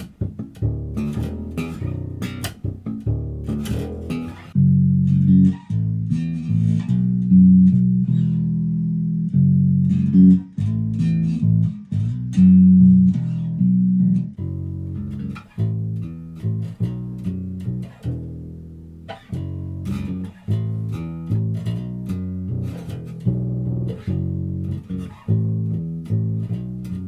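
Ibanez SR5FMDX Premium five-string electric bass played as a sound sample, a line of plucked notes. It opens with a few seconds of crisp, sharp-attacked notes, moves to longer held notes, then to quicker runs.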